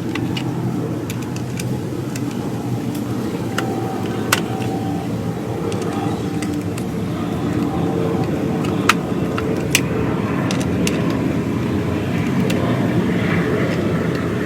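Steady mechanical running noise with a faint hum, broken by a few sharp clicks and knocks.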